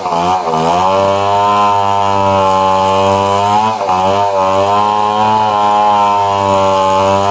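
Stihl 070 two-stroke chainsaw running at high speed while cutting wood. Its pitch sags briefly at the start and again about four seconds in, then climbs back.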